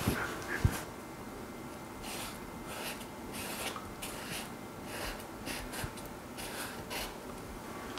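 Black paint being hand-lettered onto a textured canvas: a series of short, irregular scratchy strokes, one per letter stroke. Two soft thumps come in the first second.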